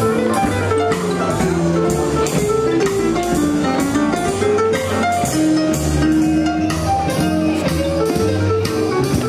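Swing jazz band playing an instrumental passage, with guitar over a steady drum beat.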